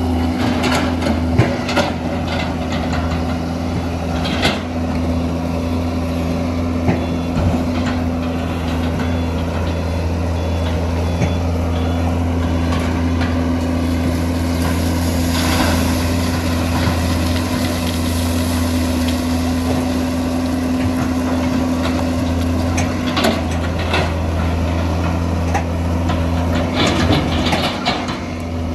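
Hitachi EX200 hydraulic excavator's diesel engine running steadily under working load, with occasional sharp knocks and clanks over it.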